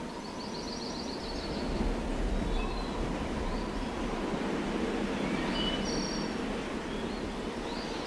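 Birds chirping and trilling now and then over a steady background hiss with a low rumble.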